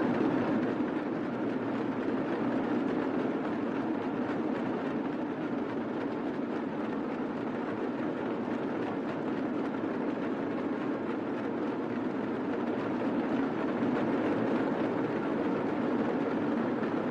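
A group of drums and large brass hand cymbals played together in a dense, continuous welcoming beat, steady throughout.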